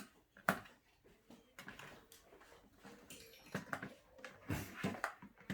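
Scattered clicks, knocks and light rustles of a plastic RC toy car, its remote and packaging being handled.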